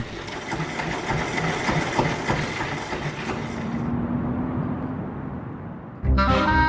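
Electric generator running, a mechanical whir with a rapid fine clatter that thins to a duller hum about four seconds in. About six seconds in, music with brass instruments starts.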